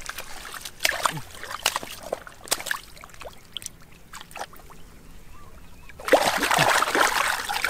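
Hands digging and groping in shallow muddy water, giving scattered wet squelches and small splashes; about six seconds in comes a louder burst of splashing that lasts over a second.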